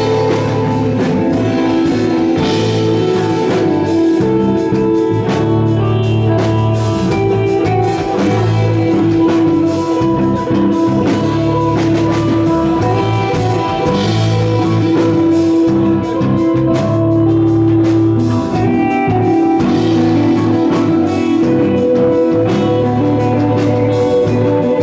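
A psychedelic rock band playing live. Sustained electric guitar lines ring over a bass guitar and a drum kit.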